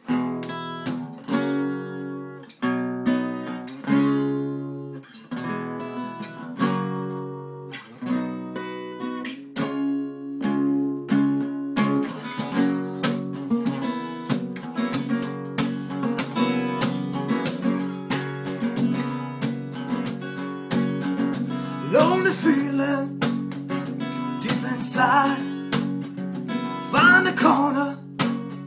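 Acoustic guitar playing a song intro out of silence: separate ringing chords at first, then steady strumming from about twelve seconds in. A wavering higher melody comes in over the strumming a few times near the end.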